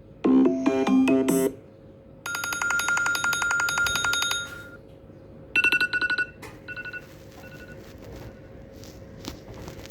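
iPad ringtones previewed one after another, each cut short. First comes a quick run of notes, then a fast pulsing high tone for about two seconds, then a few short beeps. A new melody starts at the very end.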